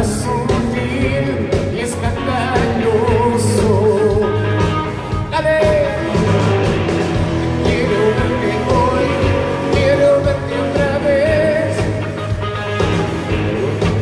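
A rock band playing live, with a male lead singer singing into a microphone over bass, guitar and drums.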